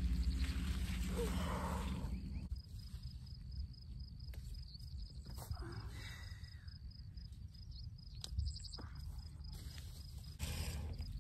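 Quiet field ambience: a steady high trilling of insects, with faint rustles and clicks of strawberry plants being handled while picking. A low rumble fills the first couple of seconds.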